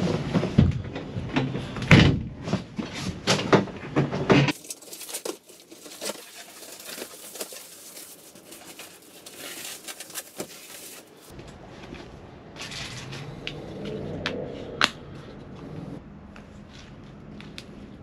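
Knocks, thumps and clatter of a person climbing into a pickup bed under a camper shell and shifting gear about. The loudest knocks come in the first few seconds, then quieter handling noises with a sharp click near the end.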